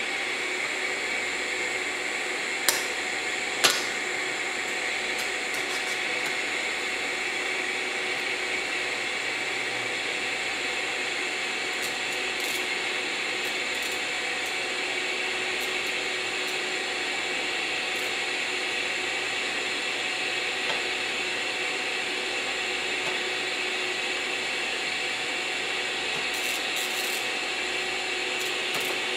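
Scratch-start DC TIG arc running steadily as the torch remelts a weld bead without filler wire: an even hiss with steady humming tones. Two sharp pops come a few seconds in.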